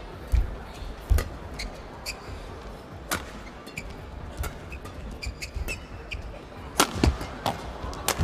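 Badminton rally: sharp cracks of rackets striking the shuttlecock at irregular intervals, the loudest hits near the end, with low thuds of players' feet on the court.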